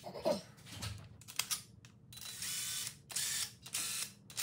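Cordless power tool running down camshaft cap bolts on a Honda F24 cylinder head. A motor whine comes in short runs: one of about three-quarters of a second about two seconds in, then two shorter ones. A few metal clicks and a light knock come before the first run.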